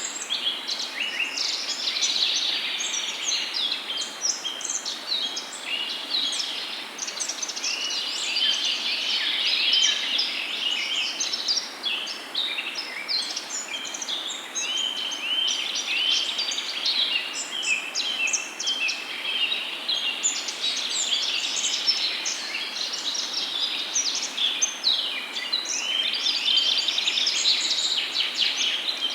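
A chorus of many songbirds chirping and trilling, calls overlapping without a break, over a steady low background hiss.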